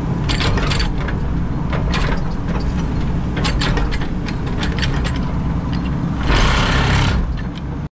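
Excavator's diesel engine running hard while it tamps and grades backfill in a trench, with repeated metallic clanks and knocks and a hiss lasting about a second near the end.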